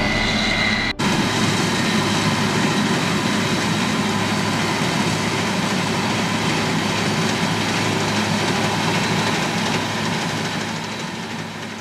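Heavy farm machinery's diesel engine running steadily, fading out near the end.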